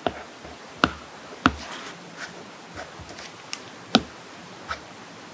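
Apple Pencil tip tapping on an iPad screen fitted with a paper-like screen protector: a handful of sharp, separate taps, the loudest about four seconds in.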